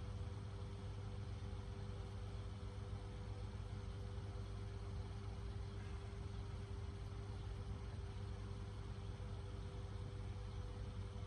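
A steady, unchanging low mechanical hum with two faint held tones above it, from a running motor or machine.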